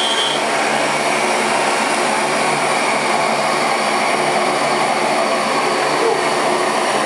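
CNC milling machine running on an aluminium job, a steady loud whirring machine noise; a thin high tone stops just after the start.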